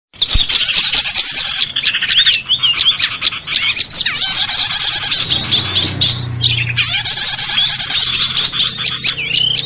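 Bird-luring recording: a dense, loud chorus of many small birds' rapid chirps, trills and short whistled notes, overlapping almost without pause.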